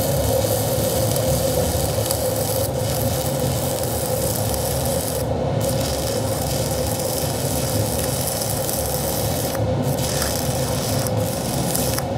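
Stick-welding (SMAW) arc crackling and hissing steadily as a 6011 rod burns along steel plate. The hiss drops out briefly a few times.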